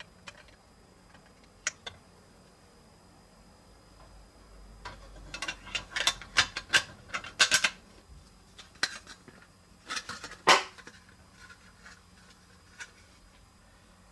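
Hard plastic toy parts clicking and clattering as a grille piece is fitted into a plastic truck cab: a few scattered clicks, a quick run of them about five seconds in, and a sharp snap about two-thirds of the way through.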